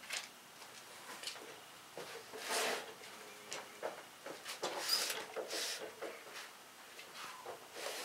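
A gloved hand sweeping sawdust off the top of a freshly sawn maple slab: scattered short brushing swishes and scuffs, the strongest about two and a half seconds in and again around five seconds in.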